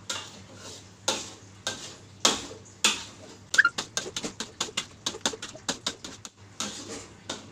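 Metal spatula scraping and knocking against a wok while thick blended green chili paste is stirred. The strokes are slow at first, about two a second, then quicken to about four a second in the middle before slowing again.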